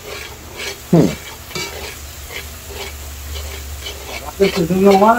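A spoon stirring and scraping in a pot of curry frying in hot oil, with a steady sizzle under uneven scrapes.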